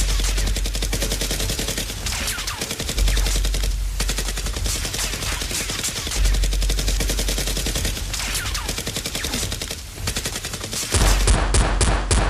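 Sustained rapid machine-gun-style gunfire, shots packed tightly together in long bursts with short lulls between them, standing in as the sound of Nerf blasters firing.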